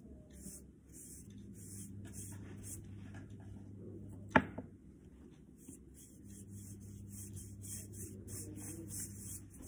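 A single sharp knock about four seconds in, as a paintbrush strikes the jar of poster colour it is dipped into. Around it there is faint rustling from the brush and hands over a low steady hum.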